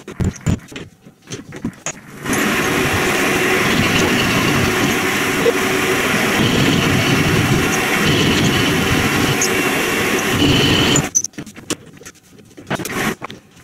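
A few knocks from a rubber mallet tapping the workpiece in the three-jaw chuck. Then the small benchtop metal lathe (YZ 210D / WM210V type) runs with a steady noise for about nine seconds and stops suddenly, followed by clatter of hands on the chuck.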